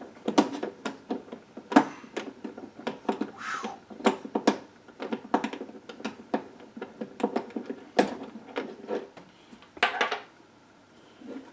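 Irregular small clicks, taps and metal clatter as a carrying handle is unscrewed and worked loose from the case of a Magnemite portable tape recorder. The handling eases off near the end.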